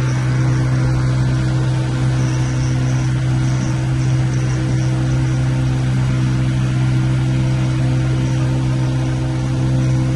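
Tour boat's motor running steadily, a constant low hum that holds one pitch throughout.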